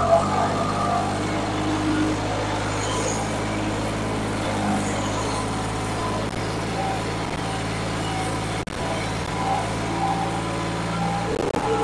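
New Holland 3630 tractor's turbocharged diesel engine, fitted with a modified fuel-injection pump, running steadily at one pitch under heavy load while pulling a disc harrow, with the front wheels lifted off the ground.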